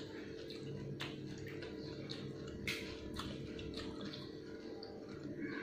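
Pani puri shells being dipped into a glass bowl of spiced water and lifted out: liquid sloshing and dripping, with a few sharp clicks, over a steady low hum.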